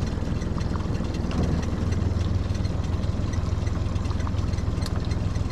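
Mercury outboard motor idling, pushing the boat along at low speed with a steady, even hum.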